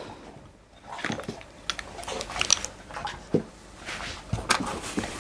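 Hands handling small items and packaging as they are put back into a box: scattered light taps, clicks and rustles at irregular intervals.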